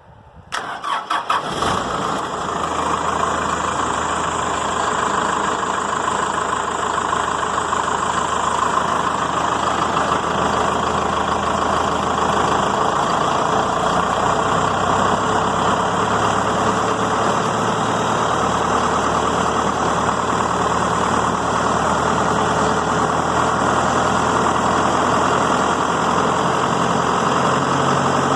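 The 140 hp John Deere four-cylinder diesel engine of a Carlton wood chipper cranks briefly and catches about a second and a half in. It then runs steadily at idle.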